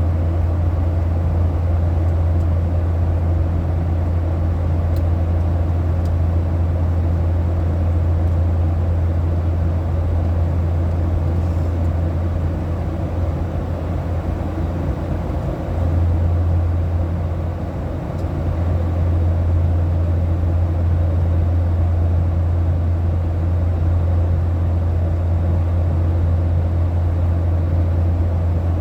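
Steady cabin noise of a Boeing 737-800 in flight: a deep hum under an even rush of air and engine noise, easing off briefly a little past the middle.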